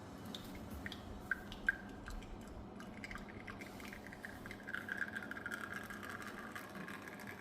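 Spring-lever heat-exchanger espresso machine during pre-infusion. Low, quiet machine noise with a couple of light ticks early on, then from about three seconds in a faint steady high hiss and trickle as the espresso starts to flow.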